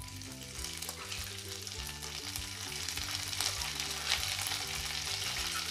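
Hot ghee sizzling in a kadai as crushed ginger and green chilli paste is dropped into it. The frying grows louder over the first couple of seconds, then goes on steadily.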